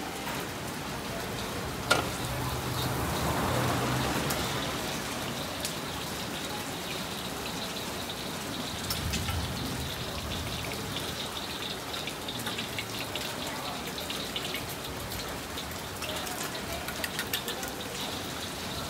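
Steady hiss of frying in a wok and rain, with a sharp metal knock about two seconds in and light clinks of a ladle against the wok near the end.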